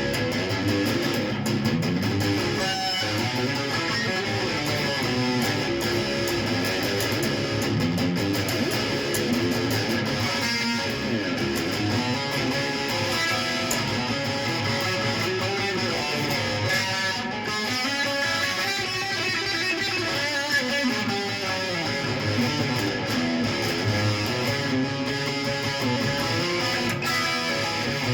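Guitar music: a guitar strummed and played continuously.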